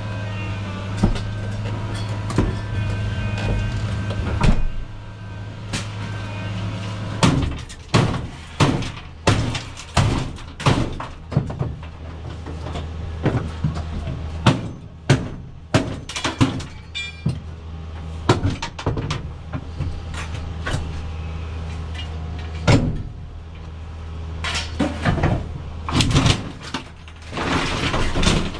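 An engine running steadily, with a long run of loud bangs and clanks from about seven seconds in: scrap metal being handled and dropped.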